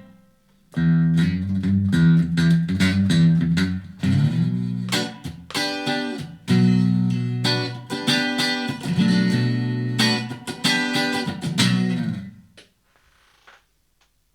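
Electric guitar played through a Blackstar ID:Core 40 combo amp with the reverb turned full on: a run of picked notes and chords that stops near the end and rings out briefly.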